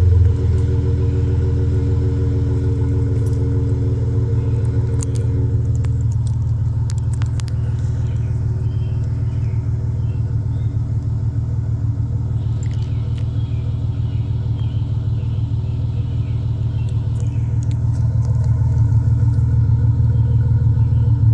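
A 2014 Dodge Charger's 3.6-litre V6 idling steadily through aftermarket mufflers and dual tips, as a low even rumble. It settles from a rev at the start, and the idle grows slightly louder near the end.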